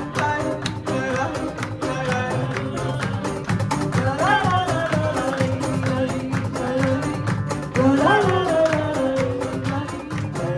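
Live band music with a flamenco feel: a melody line with sliding notes over a steady rhythm of short, sharp strokes.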